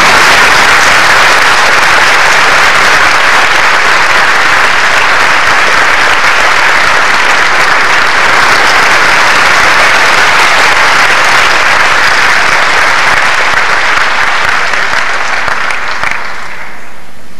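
A large audience applauding: dense, loud clapping that starts suddenly and fades out near the end.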